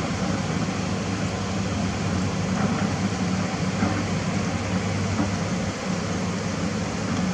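Diesel engine of heavy earthmoving equipment running steadily, a constant low drone with a noisy mechanical wash over it.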